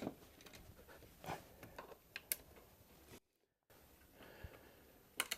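Faint scratching and a few light clicks of a rack-mount screw and rail hardware being handled, a screw that will not thread properly into the rack rail. The sound cuts out completely for about half a second in the middle.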